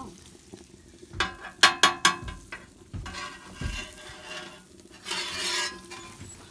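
Meat sizzling in a frying pan, with a quick run of sharp clicks and clatters about a second in and two surges of hissing later on.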